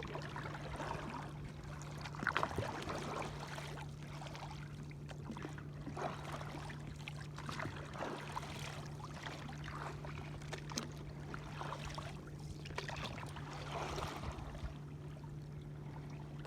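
Sea water lapping and trickling against a kayak's hull, with small irregular splashes, over a steady low hum.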